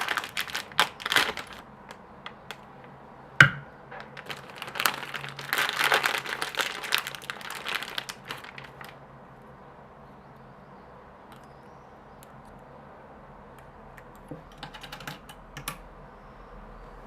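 Small hard tools and their packaging being handled: light clicking and clattering with some rustling, one sharper knock about three and a half seconds in, then a quiet stretch and a few soft clicks near the end.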